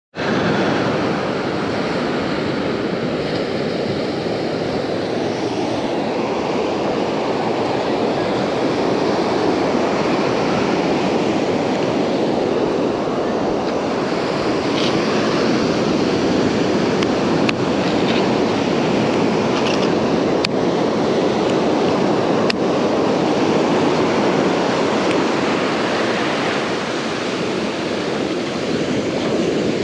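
Ocean surf washing up a sandy beach, a steady rush of breaking waves and foam. A few faint ticks come about two-thirds of the way through.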